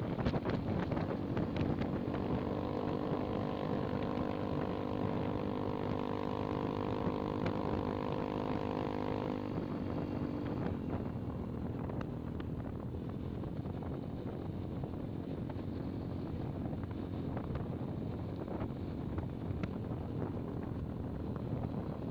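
Motorcycle engine running steadily while riding, with wind noise on the microphone. A steady engine hum stands out for the first several seconds, then gives way to mostly wind and road noise about ten seconds in.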